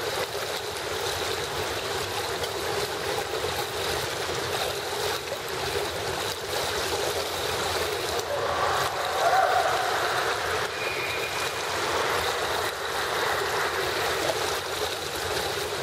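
Indoor swimming pool ambience: a steady wash of water lapping and trickling at the pool edge and into the overflow gutter, echoing in a tiled hall.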